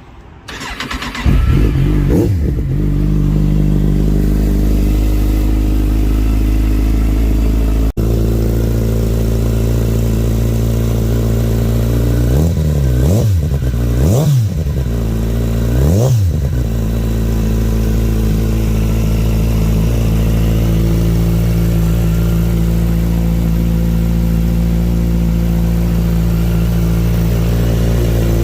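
2008 Kawasaki Z1000's inline-four engine on a cold start: it catches about a second in, flares up, then settles into a steady idle. About halfway through, the throttle is blipped three times in quick succession, each rev rising and falling, before it drops back to idle.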